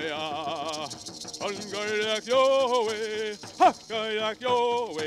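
A man's voice singing a traditional Haudenosaunee Longhouse social dance song, holding notes and swooping up and down in pitch, with a shaken hand rattle keeping the beat.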